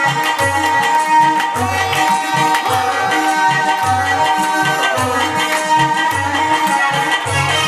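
Instrumental samra wedding music: a steady, repeating low drum beat under sustained melodic instrument lines with ornamented pitch glides, in a pause between the singer's verses.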